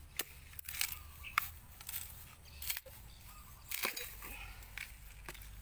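About half a dozen scattered crisp clicks and scrapes as a husked coconut is handled and worked by hand.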